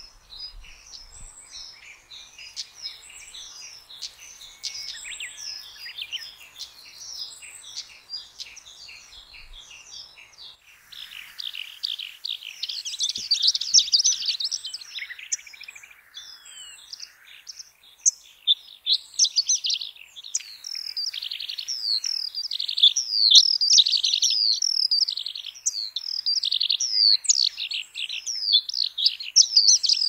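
Quieter, repeated high chirps and calls of a stonechat for about the first ten seconds. Then Eurasian skylark song takes over, much louder: a long, rapid, unbroken stream of warbling and trilling notes with a short pause around eighteen seconds.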